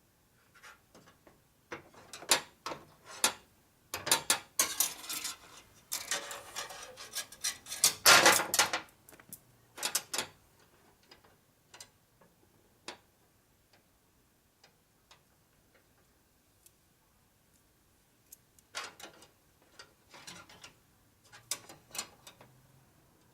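Scattered clicks and taps of a metal brake line being handled and bent by hand. In the middle comes a denser stretch of rattling and scraping, then a quiet spell, then a few more clicks near the end.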